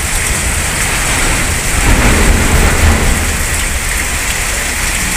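Heavy rain pouring down and splashing into standing water on flooded pavement: a steady, loud hiss. A deeper low rumble swells about two to three seconds in.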